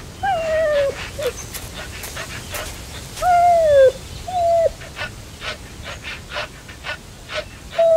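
Yellow Labrador retriever whining in high, falling whines, two near the start, two around the middle and one at the end, with quick panting between them. It is whining for its owner, who has vanished behind a held-up blanket.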